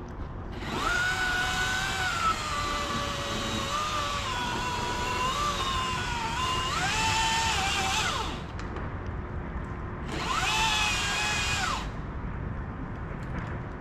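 Chainsaw running at high throttle in two bursts, one about seven seconds long and a shorter one of about two seconds near the end. Its pitch sags and recovers as it works.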